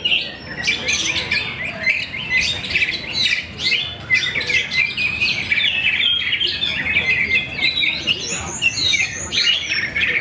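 Oriental magpie-robins (kacer) singing without pause: a rapid, varied run of sharp chirps, whistles and trills, with several songs overlapping as contest birds sing against each other.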